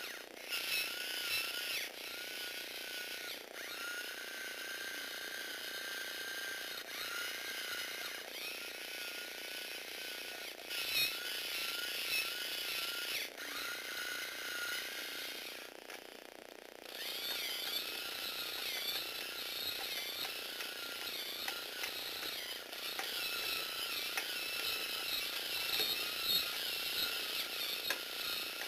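A small electric motor in a Tamiya 4-speed crank gearbox whirs as it drives the plastic Lego gears and crank-linked legs of a walking robot. It stops and restarts several times, with a gap of about a second midway, then runs on steadily with a regular pulsing.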